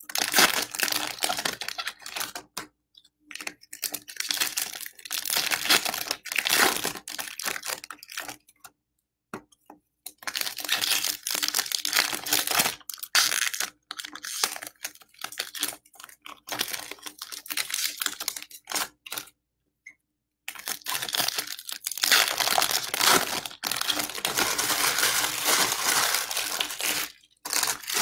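Baseball card pack wrappers being torn open and crinkled, in spells of rustling with brief pauses between them.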